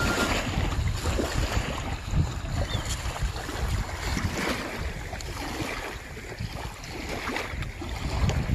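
Wind gusting on the microphone over small waves lapping on a shore.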